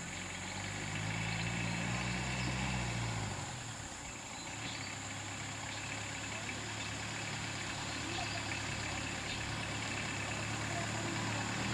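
Vehicle engine idling on the road; its low note is strongest for the first few seconds, drops away about three seconds in, then settles into a steady idle hum.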